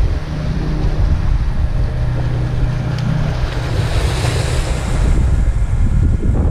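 Wind buffeting the microphone and sea waves washing over breakwater rocks, with the steady drone of a passing small fishing boat's engine that fades out about three and a half seconds in. The surf hiss swells a little after that.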